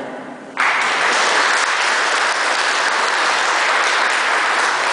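Audience applauding, breaking out suddenly about half a second in and then going on steadily.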